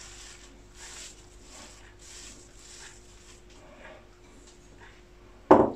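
Raw minced meat being pressed and broken up by hand in a ceramic bowl: faint, soft squishing and rustling, over a faint steady hum. Two loud short sounds come near the end.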